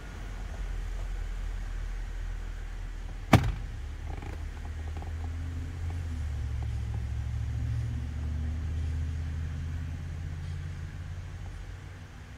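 Thunder: a single sharp crack about three seconds in, followed by a low rolling rumble that lasts several seconds and then fades.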